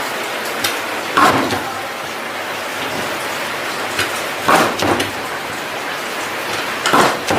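Steady factory machinery noise, an even hiss, with three louder bursts of clatter about every three seconds.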